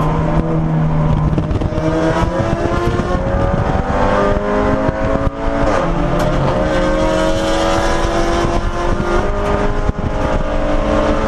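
Audi S3 race car's turbocharged four-cylinder engine heard from inside the cockpit, pulling hard under acceleration over heavy road and wind noise. Its pitch climbs, then drops briefly at gear changes about five seconds in and again near ten seconds.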